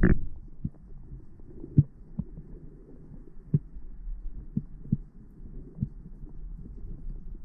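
Muffled underwater sound through an action camera's waterproof housing: a steady low rumble with irregular soft knocks, the strongest right at the start.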